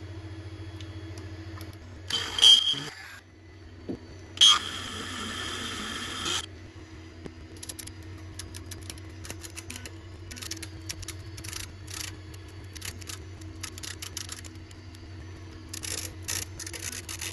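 A handheld rotary tool with a small drill bit whirs in two short bursts, about two and four seconds in, then gives way to light, irregular scratchy clicks as the small bit is turned by hand into the metal of the lathe's slide.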